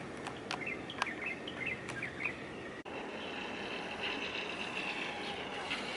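Small birds chirping in short calls over steady outdoor background noise, with a few sharp clicks. A little before halfway the sound cuts abruptly, and after that there is only the steady background noise with a faint high whine.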